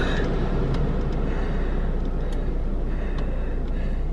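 Steady rush of a Chevrolet Camaro's climate-control fan blowing inside the closed cabin, set a little lower, with a low steady hum underneath.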